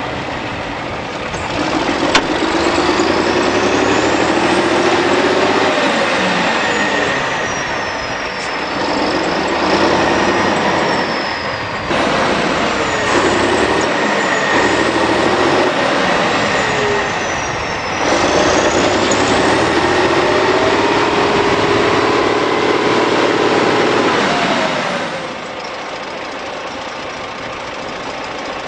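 Big wheeled tractor's diesel engine revving hard in repeated surges, with a high whine that rises and falls with the revs, as the tractor works in deep mud. About 25 seconds in it drops back to a steady idle.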